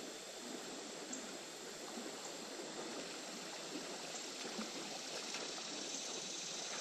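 Shallow river water flowing steadily: a soft, even rush of running water.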